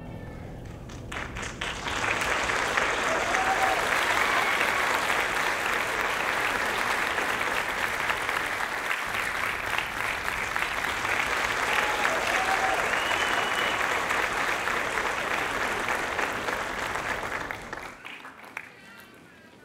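Audience applauding at the end of a performance: the clapping swells over the first two seconds, holds steady, then dies away near the end.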